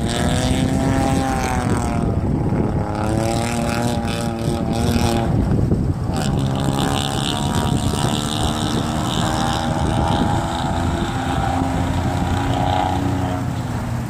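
A vehicle engine running, its pitch rising and falling in long stretches, under heavy wind noise on the microphone.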